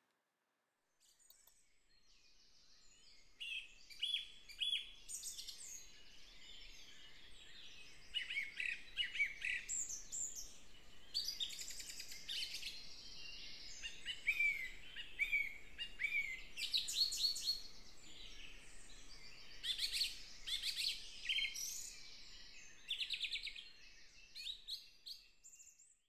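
Several songbirds singing together, a dense mix of chirps, rapid trills and short downward-sliding notes. It fades in about a second in.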